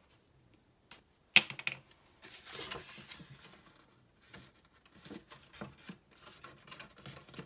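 A piece of tape pulled from a roll and torn off with a sharp snap about one and a half seconds in, followed by paper rustling and light clicks as the tape is pressed onto the paper envelope by hand.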